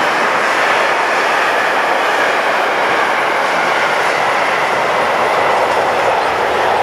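Freight wagons (covered vans and tank cars) of a long goods train rolling past: a steady, even noise of steel wheels running on the rails.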